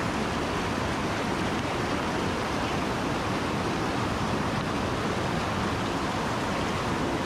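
Rapids of a swollen mountain stream rushing over rocks: a steady, loud wash of white water.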